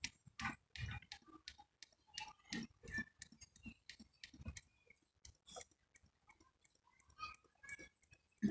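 Engine oil poured slowly from a plastic jug into a funnel on the engine's oil filler, giving faint, irregular glugs and ticks.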